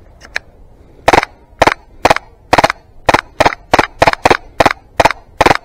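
HPA-powered AAP-01 airsoft pistol firing a rapid string of about fourteen sharp shots, two to three a second, starting about a second in.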